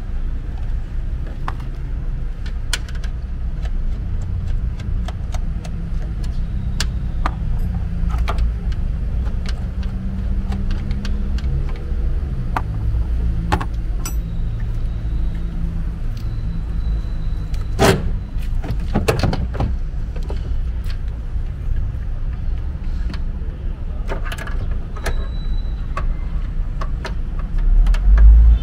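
Hands and a small tool working at the back of a car's tail light unit from inside the trunk, while the old, cracked tail light is being taken out. Scattered clicks, knocks and light metallic clinks, with a few louder knocks about two thirds of the way in, over a steady low rumble.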